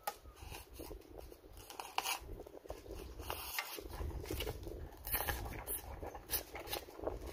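Irregular scraping, crackling and clicking of building materials being handled and cut, with a low rumble underneath from about four seconds in.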